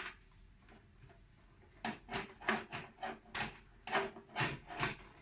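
Metal clunks and scrapes from a desktop PC case's hard drive cage being worked loose, coming about twice a second from about two seconds in.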